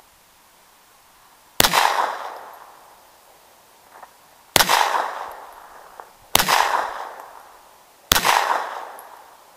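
Four pistol shots from a Colt Model 1903 Pocket Hammerless in .32 ACP, fired one at a time at uneven intervals, each sharp crack followed by an echo fading over about a second.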